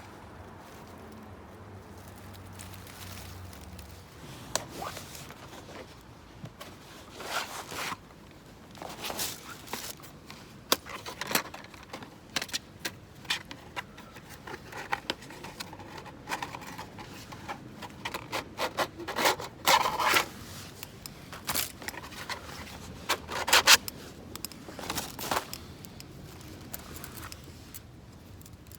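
Irregular scrapes, rubs and zipper-like rasps of camping gear being handled and set up by hand, in short bursts that come thickest around two-thirds of the way through.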